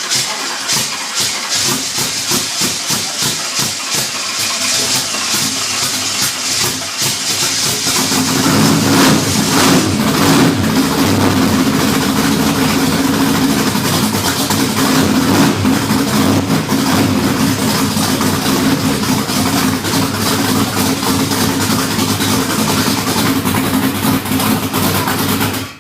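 A freshly built 355 small-block Chevy V8 being cranked by its starter in regular strokes, catching about eight seconds in and then running steadily on its first start-up, an engine with no oil pressure.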